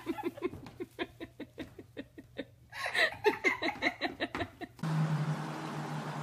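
A person giggling in quick repeated bursts, with a louder laugh about three seconds in. Shortly before the end it cuts to a steady background hiss with a low hum.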